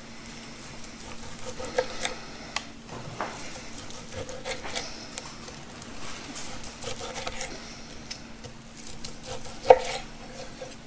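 Long kitchen knife sawing through a cooked tri-tip roast on a wooden cutting board, slice after slice in back-and-forth strokes, with sharp taps as the blade meets the board, the loudest just before the end.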